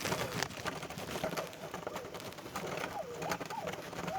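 Green pigeons (punai) calling with wavering, gliding whistled notes near the end, over scattered clicks and rustling.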